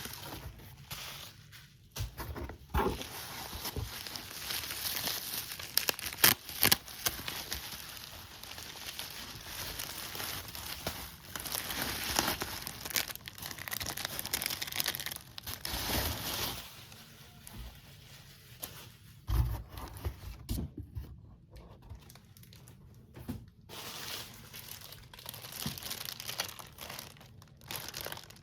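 Plastic packaging crinkling and tearing as a new plastic box is unwrapped by hand, with irregular rustling and a few sharp clicks and knocks.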